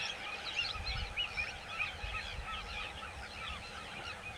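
Many birds calling at once, a dense steady chorus of short overlapping chirps, over a low rumble.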